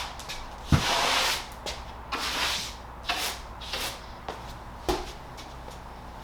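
Irregular brushing and rubbing strokes with a few light knocks, from cleaning up fine drywall sanding dust; the strongest swish comes about a second in.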